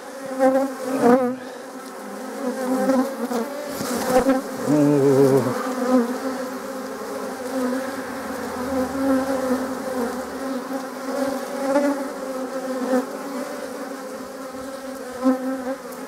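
Honeybees buzzing over a frame lifted from an open hive: a steady hum of many bees, with louder, wavering buzzes from single bees flying close by now and then.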